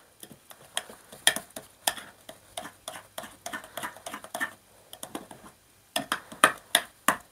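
Metal spoon stirring a thick, sticky mix of petroleum jelly and oils in a bowl: irregular clicks and scrapes of the spoon against the bowl, with a few sharper knocks near the end.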